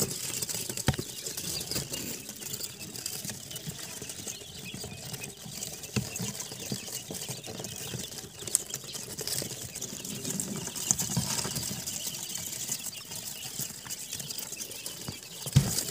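Japanese quail chicks scratching and pecking at feed scattered on paper in a cardboard brooder, a dry rustling patter with a few sharp knocks.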